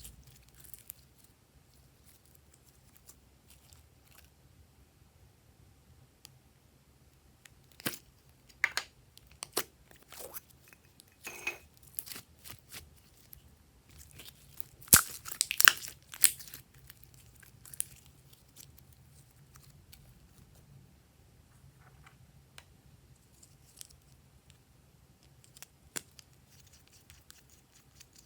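Glossy slime being kneaded and stretched by hand: scattered sticky crackles and pops, with the loudest cluster about halfway through and quiet stretches between.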